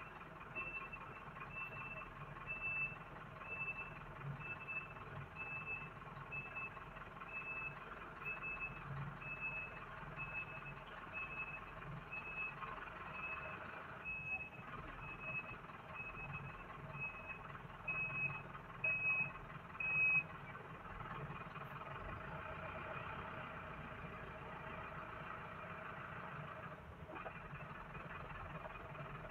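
An electronic warning beeper sounds one short, single-pitched beep a little faster than once a second, then stops about two-thirds of the way through, heard over the low, steady running noise of a car's cabin. A couple of louder bumps come just before the beeping stops.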